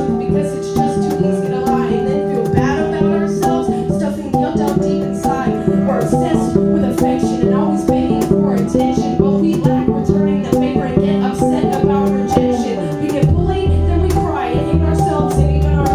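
Live acoustic band playing an instrumental passage of a hip-hop song: flute and cello over a cajón struck in a steady rhythm. Heavier low notes come in near the end.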